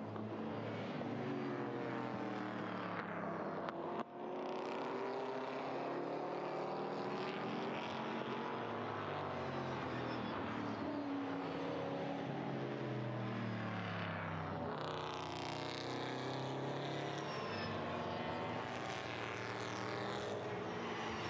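BMW M3 race cars' V8 engines at racing speed, several at once, their pitch climbing through the gears and dropping on downshifts, with a short break in the sound about four seconds in.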